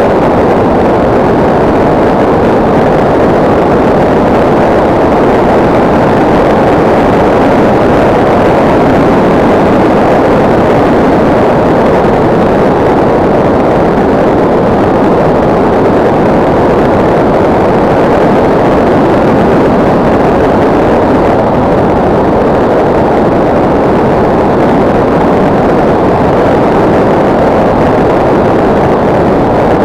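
Steady, loud rushing noise heard from the onboard camera of a SkyCruise 2400 RC model plane in flight. It is airflow over the plane and the camera's microphone, with no distinct motor whine standing out.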